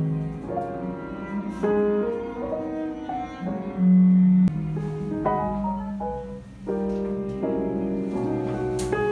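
Instrumental background music: a melody of shifting notes over held low notes.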